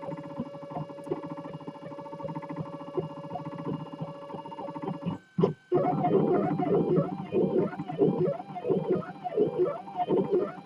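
3D printer stepper motors whining as the print head moves through a print, the tones sweeping up and down in quick repeated arcs with each move. The sound cuts out briefly a little past halfway.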